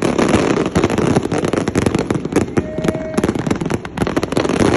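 Fireworks display going off in a dense, continuous barrage of rapid cracks and bangs, many per second, with no break.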